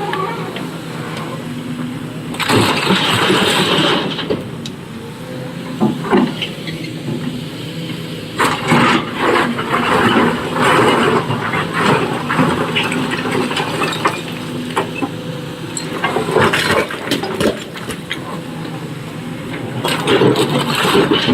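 SANY SY225 excavator's diesel engine running steadily while working, with repeated loud spells of clattering rock as quarry material is scooped and loaded into a truck.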